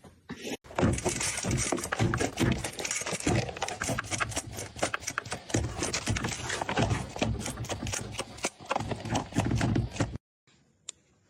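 Rapid, irregular clattering and knocking of hard objects that cuts off abruptly about ten seconds in.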